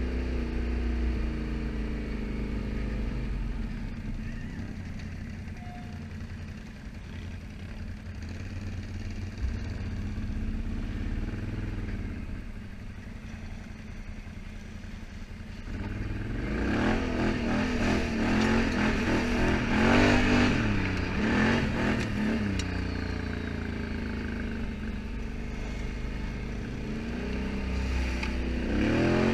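Can-Am Outlander ATV engine running as it rides a rough gravel trail. It runs steady and fairly quiet through the first half, then revs up and down louder for several seconds past the middle, with clatter from the rough track, and eases off again.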